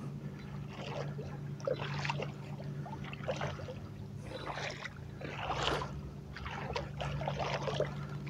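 Footsteps wading through shallow water over a muddy, clay-like sandbar, a swishing splash with each stride about once a second. A steady low hum runs underneath.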